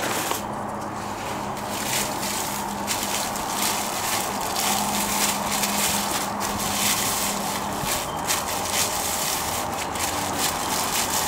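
Clear plastic bag crinkling and rustling in irregular bursts as a motorcycle muffler is handled and unwrapped from it.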